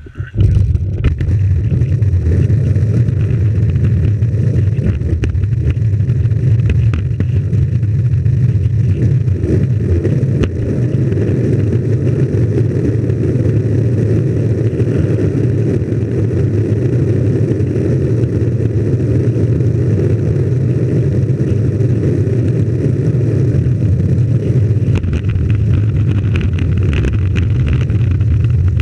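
Homemade longboard's wheels rolling over rough asphalt, a loud, steady, deep rumble picked up through the board-mounted camera. It kicks in sharply within the first second and holds steady throughout.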